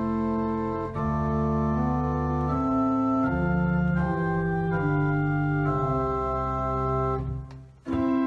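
Church organ playing slow, sustained chords over a deep held bass line, the harmony moving about once a second. Near the end the sound dies away briefly and a new chord comes in.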